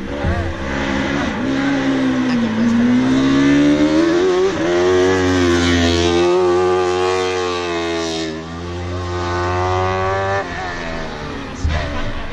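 Competition car engine driven hard on a slalom course, revs climbing and dropping repeatedly as it shifts gears and brakes for the gates, with a short sharp pop near the end.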